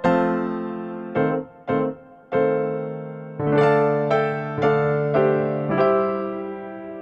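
Background music on a keyboard: chords struck at an uneven, unhurried pace, each one ringing and fading out.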